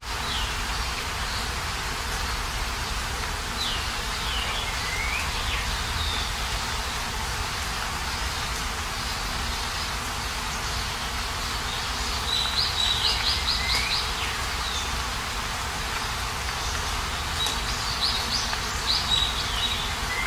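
Steady rain falling, with short high chirping calls now and then: falling chirps early on, and quick runs of repeated notes about twelve seconds in and again near the end.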